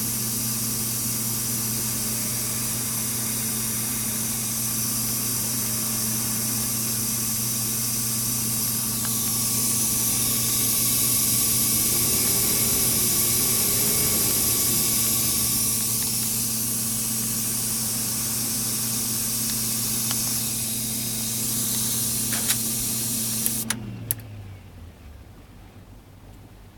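Hiss from a DFI LANPARTY UT nF4 SLI-DR Expert motherboard over the steady hum of a running PC; the hiss swells for a few seconds mid-way. Near the end, clicks, then the hiss stops abruptly and the hum winds down as the power is cut.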